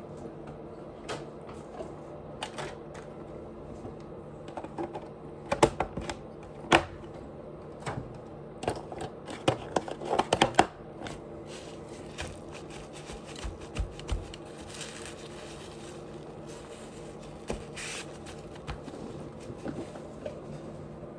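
Close-miked eating sounds: irregular wet clicks and smacks of chewing, bunched in two flurries in the middle, over a steady low hum.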